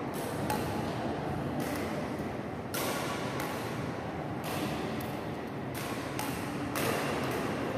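Badminton rackets striking shuttlecocks in a training drill: a string of sharp hits, about one every half second to a second, over a steady background hall noise.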